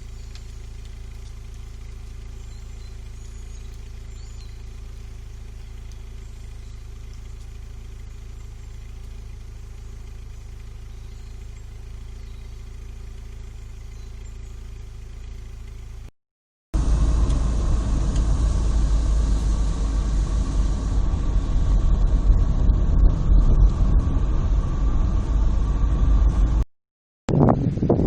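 Steady low rumble for the first part. After a cut there is loud, gusting wind buffeting the microphone, with a rushing roar heavy in the bass that rises and falls.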